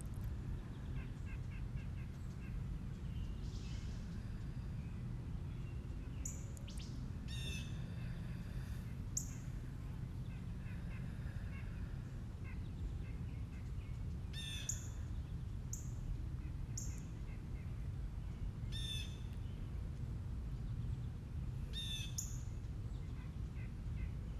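Wild birds calling over a steady low rumble: a short, high, sharply falling call repeats about eight times, with softer rapid chirps between.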